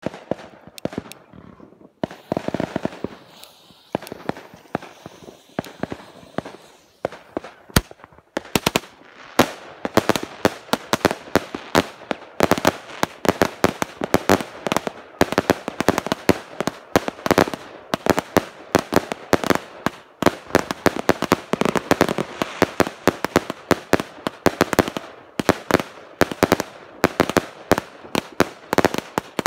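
Three Girl Power 210-shot, 20 mm consumer firework cakes firing. A few scattered pops come over the first seconds, then from about eight seconds a rapid, continuous volley of bangs, many shots a second.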